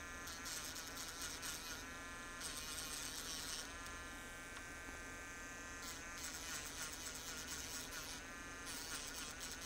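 Small battery-powered grinding pen (a Dremel-like rotary tool) running with a thin, high whine while its tip grinds old spot welds off a battery's tabs. The harsher grinding hiss comes and goes in several spells as the tip is pressed on and lifted.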